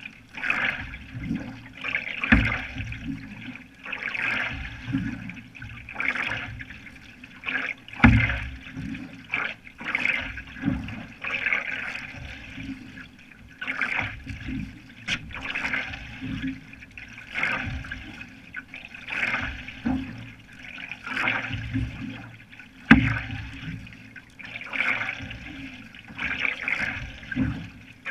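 Single-blade canoe paddle strokes pulling through lake water, a splashing rush about every second and a half. A few sharp thumps stand out, the loudest about 2, 8 and 23 seconds in.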